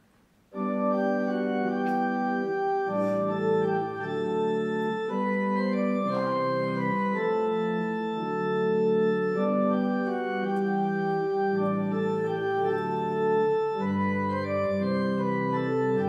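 Organ playing sustained, slowly changing chords, starting abruptly about half a second in, with a low bass line added near the end: the organ introduction to the Gospel acclamation that follows the second reading at Mass.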